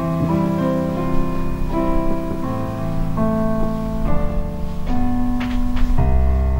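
Piano music: a melody over chords, each note ringing on, with bass notes changing underneath.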